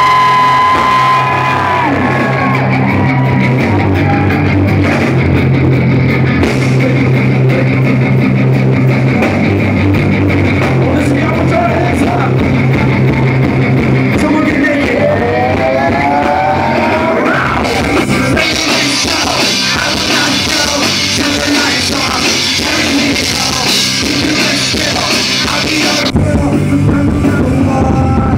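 Live rock band playing loud through a venue sound system: electric guitars and drums, with a male lead singer's voice coming in over them at times.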